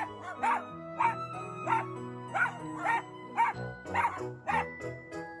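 Miniature dachshund barking repeatedly, about two sharp barks a second, with background music underneath.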